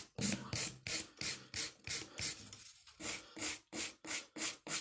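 Hand nail file rasping back and forth over a gel nail extension, about three strokes a second, filing down the grown-out nail during a maintenance. There is a short pause a little under three seconds in.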